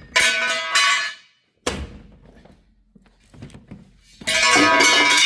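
Two short snatches of music that start and cut off abruptly, with a few faint knocks and taps in the quiet gap between them.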